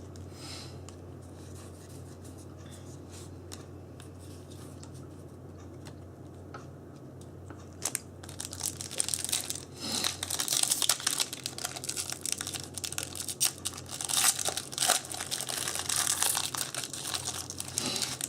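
Foil wrapper of a Yu-Gi-Oh! booster pack being torn open and crinkled in hand, a run of irregular crackling rips through the second half; before that only a steady low electrical hum.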